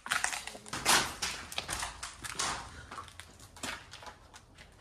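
Footsteps crunching and scuffing over debris on a concrete floor, irregular steps, loudest about a second in.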